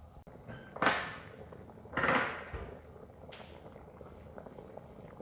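Two brief clattering scrapes of cookware, about a second apart, at a pot of rice boiling in water.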